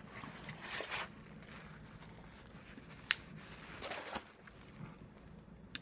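Handling noises: a few short rustling scrapes, with a sharp click just after three seconds and another near the end.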